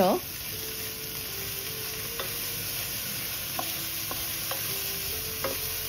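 Diced vegetables sizzling in a hot pan over high heat while being stirred with a spatula, which taps the pan lightly a few times.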